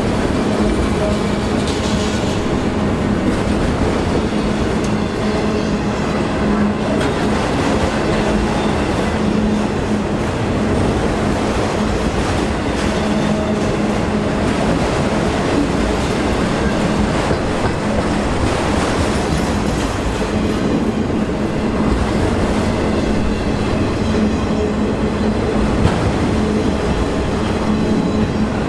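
Freight train of autorack cars rolling past at close range: a steady rumble and clatter of steel wheels over the rails, with a steady low tone running under it.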